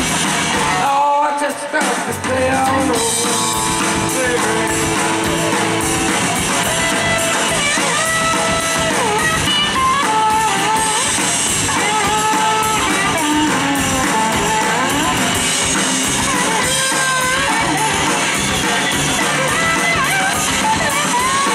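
Live rock band with electric guitars, bass and drums playing full-out, the lead guitar playing bending lines; the band drops out briefly about a second in, then comes straight back.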